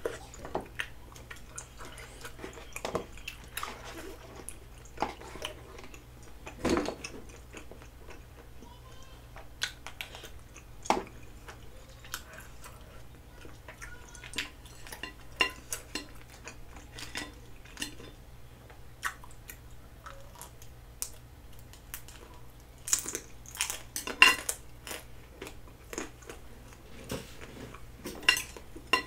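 Chewing of food, with scattered clicks and clinks of utensils against bowls and a plate. There is a louder clatter about a quarter of the way in, and again twice near the end.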